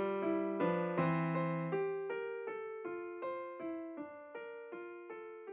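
Background music on a piano-like keyboard: evenly spaced notes, about three a second, fading slowly. The low bass notes drop out about two seconds in.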